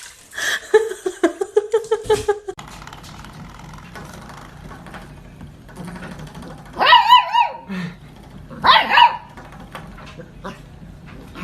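A dog giving two short barks with a wavering pitch, about two seconds apart, past the middle. Before them, a buzzing, pulsing sound cuts off suddenly about two and a half seconds in.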